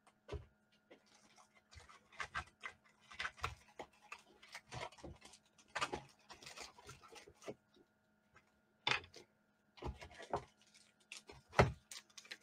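Irregular light clicks, taps and rustles of hands rummaging through trading-card supplies to fetch a large card sleeve, over a faint steady hum.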